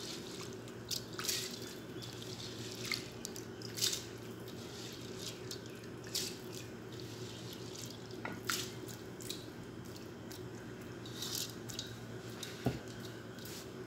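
Soaked rice and moong dal dropped by hand and poured from a bowl into a pot of boiling water: scattered drips and small splashes every second or two over a steady low hum.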